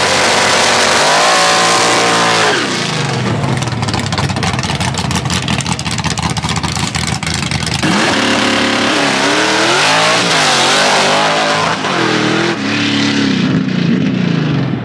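Drag car engine revving hard. Its pitch rises and falls several times, with a stretch of loud, crackling roar in the middle.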